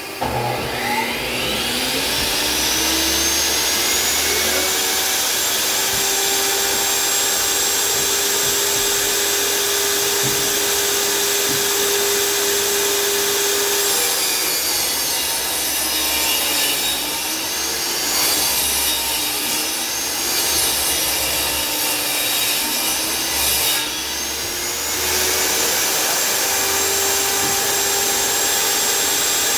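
Table saw motor spinning up to speed and running steadily, then its pitch sagging and wavering for about ten seconds as the blade rips through a board under load, before it picks back up to free-running speed. A shop vacuum runs steadily underneath.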